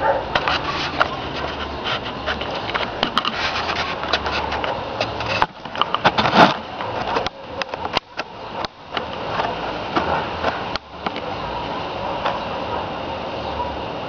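Scattered clicks, knocks and rustles of a handheld camera being moved and set down, over steady background noise. No gunshot.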